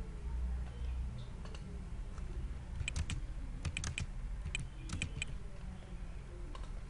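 Typing on a computer keyboard: a quick run of about ten sharp keystrokes in the middle, entering short labels.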